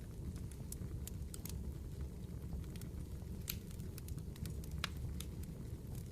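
Firewood burning in a campfire: irregular sharp crackles and pops over a steady low rumble.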